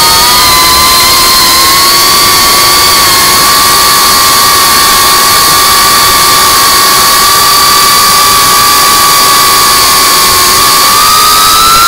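FPV quadcopter's electric motors and propellers whining at a steady throttle over a hiss, the pitch holding level and rising a little near the end.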